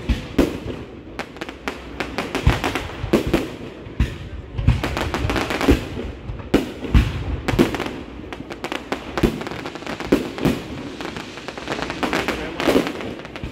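Aerial fireworks shells bursting overhead: a dense, irregular run of sharp booms and bangs, often several a second.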